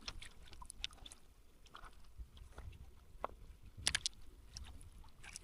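Faint, scattered clicks and crunches of river stones on a gravel bed, with a louder cluster of clacks about four seconds in.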